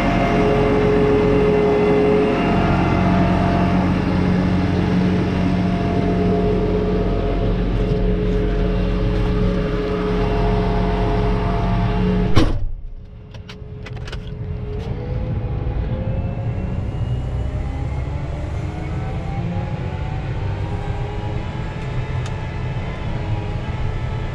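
John Deere 8RX 410's 9-litre turbocharged six-cylinder diesel running steadily, heard close beside the tractor. About halfway through there is a sharp knock and the sound drops suddenly. After that the engine is heard muffled from inside the cab, with a pitch that rises over the next few seconds.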